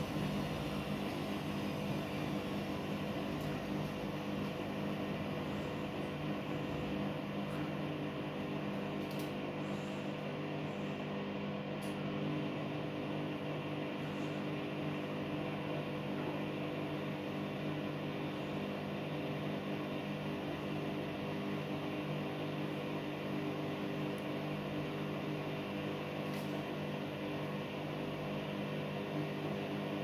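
Siemens front-loading washing machine running, its drum spinning at a steady speed: an even motor hum with several steady tones over a whir.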